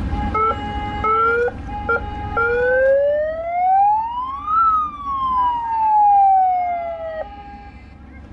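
Siren from a passing parade boat sounding one long wail, rising in pitch to a peak about halfway through and falling away, over a steady horn tone; both cut off about seven seconds in.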